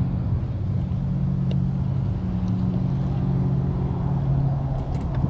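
Crossrc Demon FR4 scale RC crawler's electric motor and gear drivetrain running slowly as the truck climbs a curb, a steady low hum whose pitch shifts slightly partway through, with a few faint clicks near the end.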